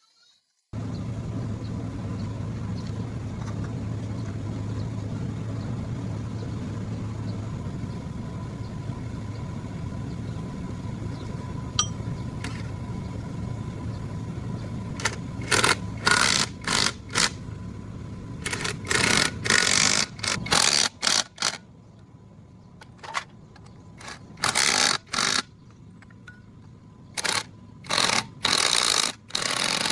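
A small motor hums steadily, cutting out about twenty seconds in. From about fifteen seconds in come a dozen or so short bursts of hissing, each under half a second, like air or spray being let out in spurts.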